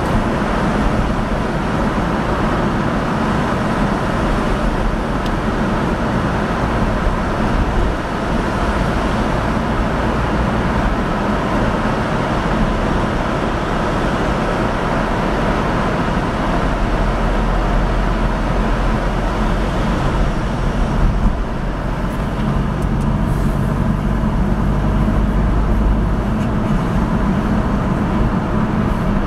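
Steady road and engine noise of a car driving in traffic through a road tunnel, heard from inside the car. The higher hiss eases about two-thirds of the way through as the car leaves the tunnel.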